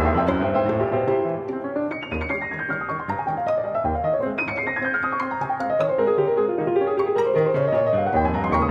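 Piano music with rapid runs of notes, cascading downward twice and then climbing back up near the end.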